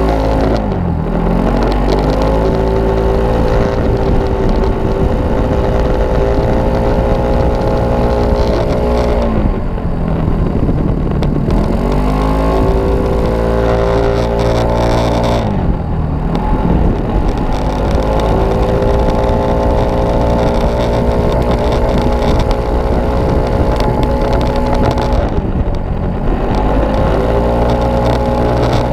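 Kymco Racing S scooter's single-cylinder four-stroke engine and exhaust running hard at racing speed, held at a steady high pitch under throttle. The pitch falls away briefly four times as the throttle is shut for bends, then climbs back and levels off as it pulls out again.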